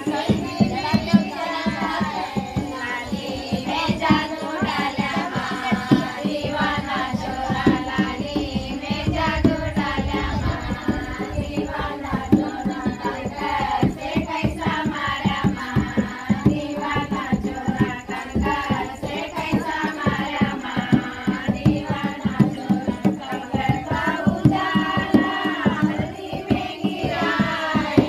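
A group of women singing a sandal geet, a devotional folk song, in unison, accompanied by a dholak drum beating a quick, steady rhythm.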